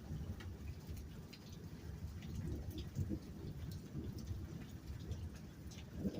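Rain during a thunderstorm: scattered drops ticking, over a low steady rumble.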